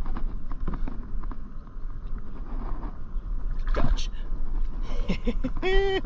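Water splashing and sloshing as a hooked largemouth bass thrashes through surface grass beside a kayak and is lifted out, with a steady rumble of wind on the microphone.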